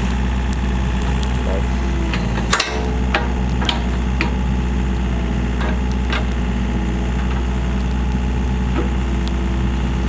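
Excavator's diesel engine running steadily, with a handful of sharp knocks and clanks from the digging. The loudest knock comes about two and a half seconds in.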